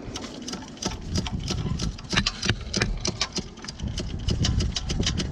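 Hand ratchet wrench clicking in quick, uneven runs of strokes as it turns a bolt on a car's starter.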